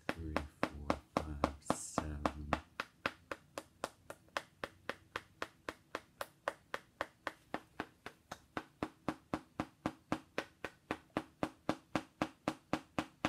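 Small hammer tapping a figurine in a rapid, even rhythm, about four sharp taps a second.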